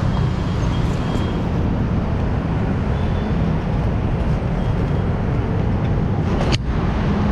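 Steady low rumble of vehicle engines and road traffic, with one sharp click near the end.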